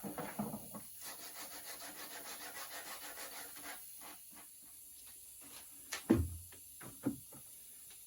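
Rapid, rhythmic rubbing strokes on wood for about three seconds, followed by a few sharp wooden knocks, the loudest about six seconds in.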